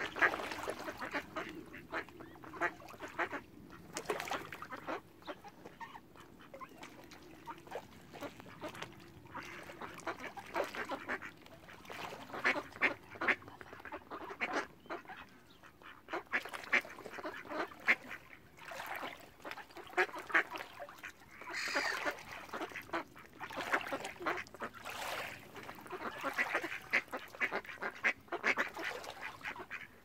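Mallard ducks quacking in a crowd, many short calls overlapping without a break, with a louder, higher call about two-thirds of the way through.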